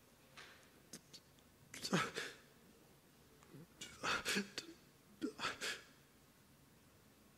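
A man crying quietly: three short bouts of shaky, sobbing breaths and whimpers, the first with a falling moan, after a few faint sniffs.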